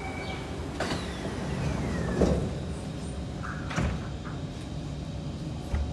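Sliding doors of a Kawasaki C151 metro train closing: a click, a falling whine as the doors slide, then a loud thud as they shut, with further knocks afterwards, over the train's steady low hum.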